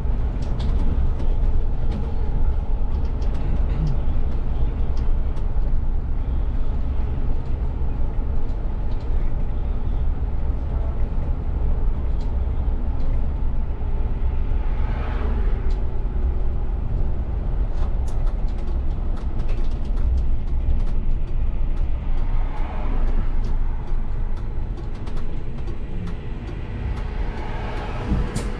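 Cab of a VDL city bus driving: a steady low rumble of drivetrain and road noise, with small rattles and clicks in the cabin. A short sharp burst of sound comes right at the end as the bus reaches a stop.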